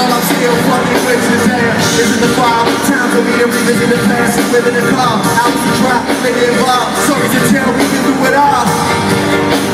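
Loud amplified live hip-hop concert music with a singing voice over it, heard through the venue's sound system from among the crowd.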